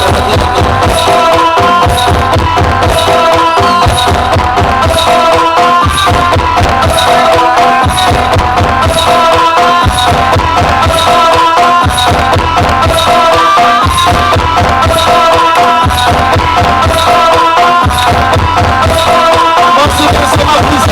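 Loud drum-led music with a steady, repeating beat and held melody notes, played through a large sound system.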